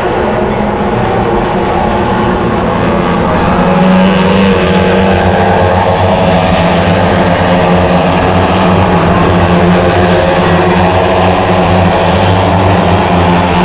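A pack of 250 cc Honda racing motorcycles running at high revs around the circuit, several engines heard together. The sound swells about four seconds in and then stays loud.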